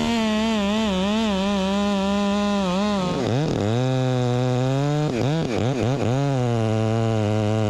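Gas chainsaw running at high revs, its pitch wavering. About three seconds in, the revs drop and pick back up, twice, and then the saw runs more steadily at a lower pitch.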